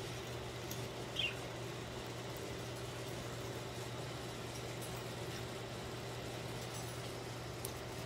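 A budgerigar gives a single short chirp about a second in, over a steady low background hum; a couple of faint clicks come from the birds moving in the cage.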